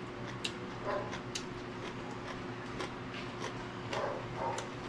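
Close-up chewing of crunchy green vegetables: scattered sharp, crisp clicks and crunches, a few a second, over a steady low hum.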